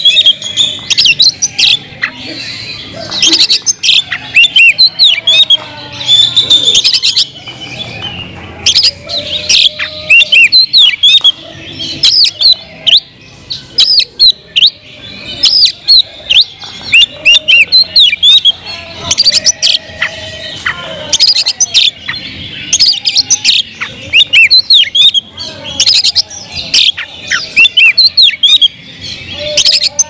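Oriental magpie-robin (kacer) in full song: a long run of quick, varied whistled notes that sweep up and down, delivered in bursts with short pauses between them.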